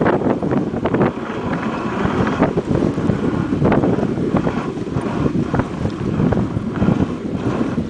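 Wooden dog sled running over a packed snow trail behind a husky team: a continuous rough scraping rumble from the runners, with scattered knocks and rattles from the sled and wind buffeting the microphone.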